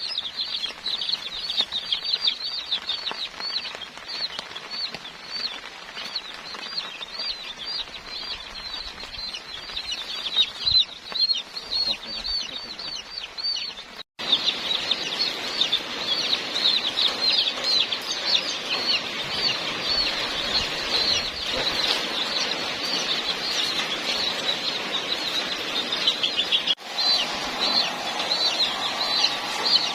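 A group of Aseel chicks peeping continuously in rapid, high-pitched chirps, briefly cut off about halfway through.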